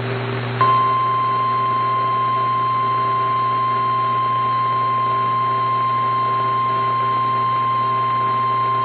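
Background hiss and hum of a radio broadcast, then, about half a second in, a single steady alert tone comes on and holds without change. It is the long warning alarm tone (1050 Hz) that NOAA Weather Radio sounds before a severe thunderstorm warning.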